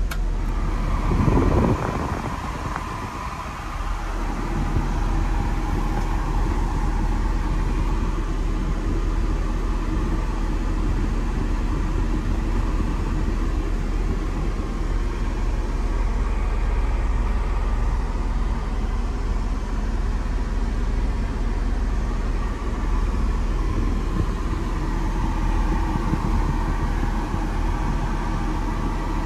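Mercedes G320 Cabriolet engine idling steadily shortly after a cold start, heard from inside the cabin, with a brief louder rush about a second in.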